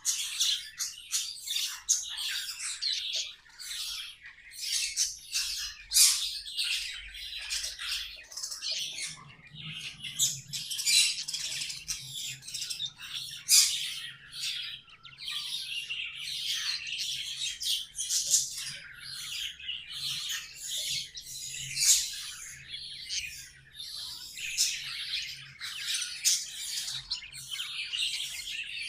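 Budgerigars chattering continuously, a dense run of warbling chirps broken by short, sharp squawks.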